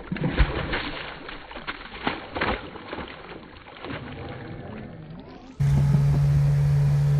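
A released bass splashing and thrashing at the water's surface, with a few sharp splashes in the first three seconds. About five and a half seconds in, this cuts to a boat's outboard motor running steadily at speed.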